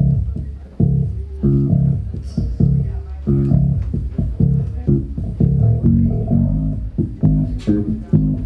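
Electric bass guitar and electric guitar playing together, a steady run of short plucked notes about two a second, each dying away quickly.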